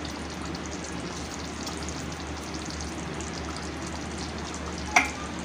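Thick chicken masala gravy simmering and sizzling gently in a pan on a low flame, a soft steady crackle. A single sharp tap about five seconds in.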